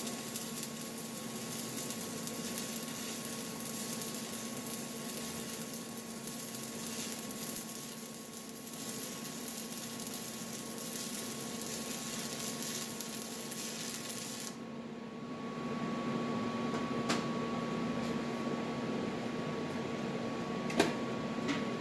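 Stick welding arc with 7018 electrodes, a steady crackling hiss over the welding machine's hum. The arc cuts off sharply about two-thirds of the way through, leaving the machine humming, with a couple of sharp clicks near the end.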